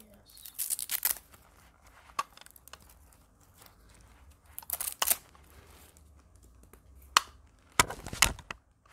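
Handling noise as a laptop charger's cable and power adapter are untangled near loose plastic packaging: rustling and crinkling in several short bursts, with quiet stretches between.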